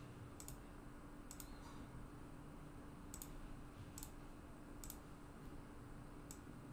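Computer mouse clicking: about six faint, sharp clicks at irregular intervals while a formula image is pasted into a spreadsheet. A faint steady hum runs underneath.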